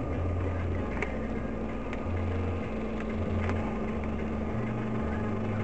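Steady low drone of a car's engine and tyres heard from inside the cabin while driving on a wet road, with a steady hum and a few faint light ticks.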